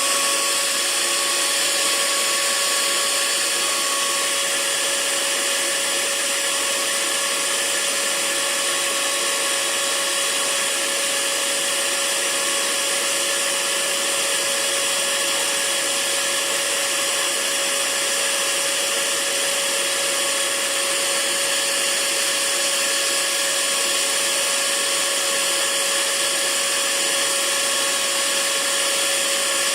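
Hair dryer running steadily: an even, unbroken rush of air over a constant motor hum.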